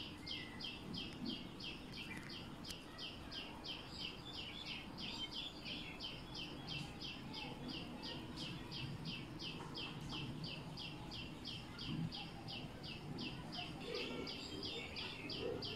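A high, short chirp repeated steadily about three times a second, an unseen animal calling over faint outdoor background noise.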